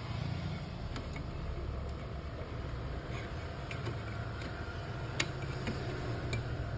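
Scattered light clicks and taps of hands handling a Toshiba e-Studio copier's fuser unit, its metal frame and plastic parts, over a steady low background hum. The sharpest click comes about three-quarters of the way through.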